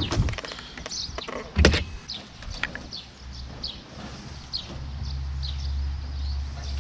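A single loud clunk about two seconds in, as mowers loaded in a pickup truck's bed are handled and covered with a cargo net; from about five seconds in a low, steady engine hum sets in.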